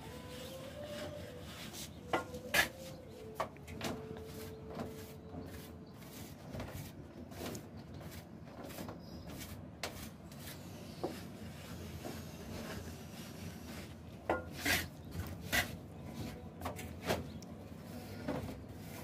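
Steel plastering trowel scraping and smoothing cement mortar on a ceiling, with sharp clinks of the metal trowel in clusters about two seconds in and again near the end.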